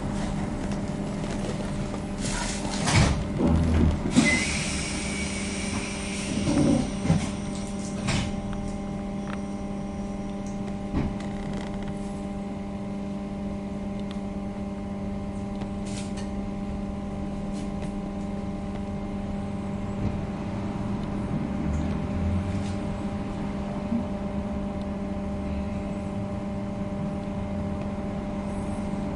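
ZiU-682 trolleybus heard from inside the cabin, standing in traffic with a steady electric hum from its onboard equipment. In the first few seconds a few knocks and a hiss of compressed air are heard as it comes to a halt.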